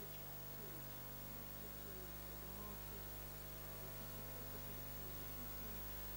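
Faint steady mains hum with hiss, the background noise of an old recording's soundtrack.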